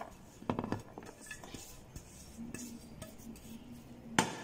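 Plates knocking and clinking against a plastic tub as chopped onion and grated carrot are tipped onto rice: a quick few clinks about half a second in, and one sharp knock near the end.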